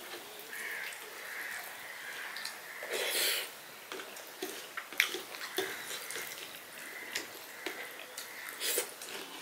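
Fingers mixing and kneading rice with curry on a steel plate: soft wet squishing with scattered small clicks, the sharpest about five seconds in. There is a louder noisy burst about three seconds in.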